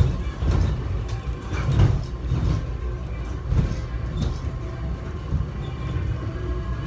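Airport terminal subway train running, heard from inside the car: a steady low rumble with occasional clacks and rattles.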